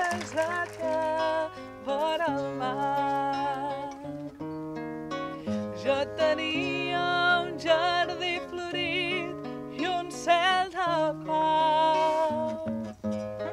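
A mixed group of men's and women's voices singing a slow song together in harmony, with held notes and vibrato.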